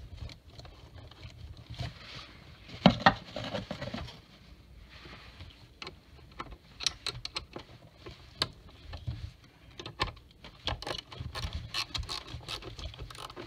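Hand-handling noises in an engine bay: scattered clicks, taps and light scrapes, with one louder knock about three seconds in and quicker clicking in the second half.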